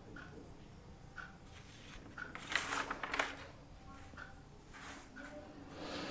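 Faint ticking about once a second, like a wall clock, in a quiet small room. A brief louder noise comes a couple of seconds in and another near the end.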